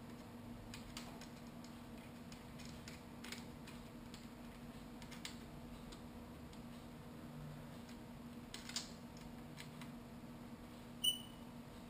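Faint scattered clicks and light taps over a low steady hum, with a short high-pitched ping near the end.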